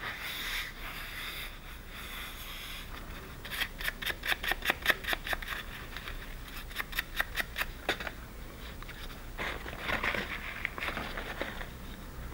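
Sandpaper rubbed back and forth on a small metal contact from a starting compressor relay, scrubbing off a dirt deposit on the contact. The scratching comes in quick strokes, several a second, in two runs starting a few seconds in, then a softer stretch of rubbing near the end.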